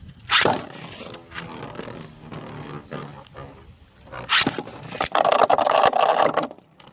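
Beyblade spinning tops launched into a stadium with a sudden rip, then spinning and rattling against each other with clicks, a sharp loud hit about four seconds in, and a louder grinding scrape that stops shortly before the end, as one top is knocked out.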